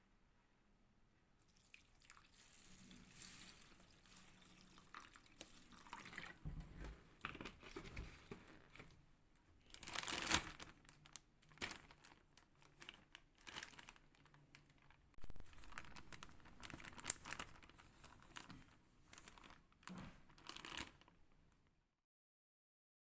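Crinkling and rustling of handled packaging, with scattered clicks, knocks and a little water sound. It stops dead about a second before the end.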